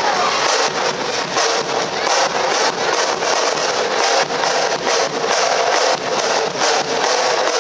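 Music with a steady drum beat, over a dense noisy background.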